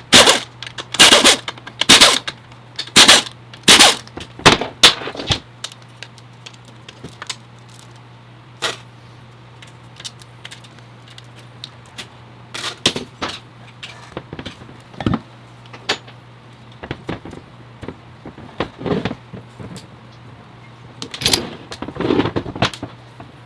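Tools at work on an automatic transmission during a teardown: a run of sharp, loud metallic impacts about once a second, then scattered clinks and knocks of tools and parts over a steady low hum.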